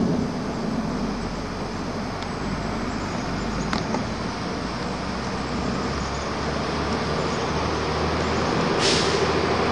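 Street traffic noise: a steady road hum with a low engine rumble that grows from about six seconds in, a brief click near the middle, and a short hiss near the end.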